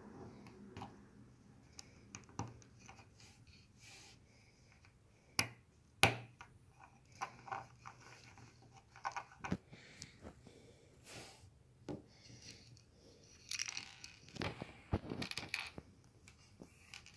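Plastic Lego bricks being handled and pressed together on a wooden table: scattered small clicks, taps and scrapes, with one sharper knock about six seconds in and a busier patch of rattling toward the end.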